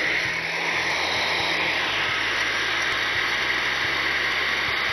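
Countertop blender running steadily, puréeing preserved red peppers, garlic, olive oil and sesame seeds into a sauce.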